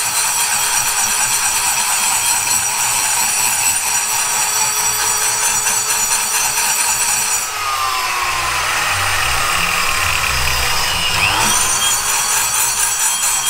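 High-pitched whine of a high-speed rotary grinder running steadily, its pitch sliding down and then back up between about eight and eleven seconds in.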